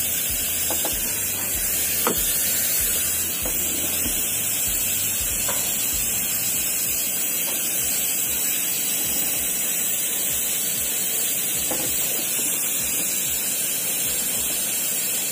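A steady hiss, with a few faint taps and clicks from hands working at the engine's camshaft seal area.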